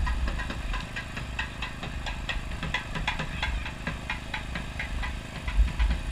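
A steady mechanical hum with a low rumble, and a dense scatter of short clicks and knocks over it.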